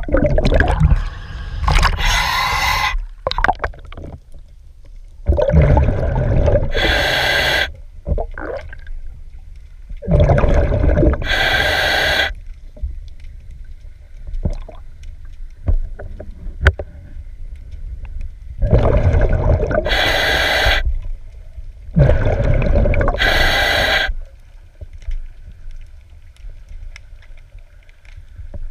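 A diver breathing underwater through a regulator: about five slow breaths, each a burbling rush of exhaled bubbles and a sharp hiss of air, with quieter gaps between.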